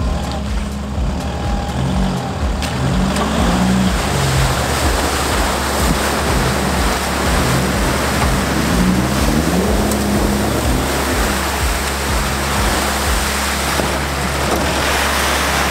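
Toyota Prado's engine revving in surges as it ploughs into a deep mud hole and bogs down, tyres churning through mud and muddy water. Background music with a steady beat plays underneath.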